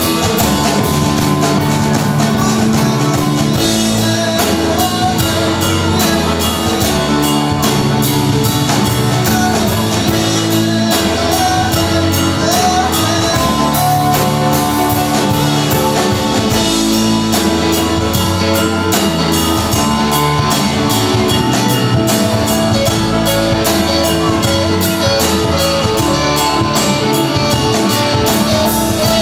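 Live rock band playing an instrumental jam: electric guitar, bass, keyboards and drum kit over a steady beat.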